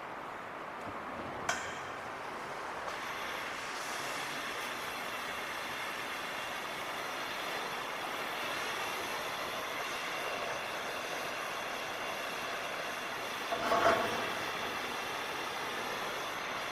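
Welding arc burning steadily with an even hiss, starting after a sharp click about a second and a half in, with a brief louder burst near the end.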